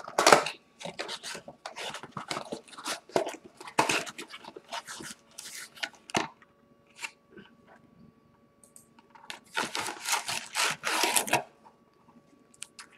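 Trading card packaging being opened and handled by hand: a foil pack wrapper and a cardboard box rustling and crinkling in irregular bursts. There is a quiet stretch in the middle, then a dense spell of rustling about ten seconds in as the cards are pulled out.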